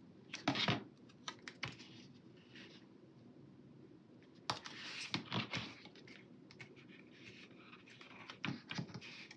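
Small scissors snipping a paper sticker, with paper and sticker rustling, light clicks and taps as it is handled on a planner page. The loudest snips and rustles come about half a second in and again around the middle.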